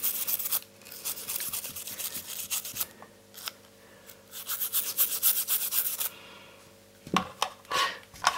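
Toothbrush scrubbing the contact pins of a TV's LVDS ribbon cable in quick back-and-forth strokes, in three spells that stop about six seconds in. The contacts are being cleaned to cure a poor connection that makes the picture drop out and change colour.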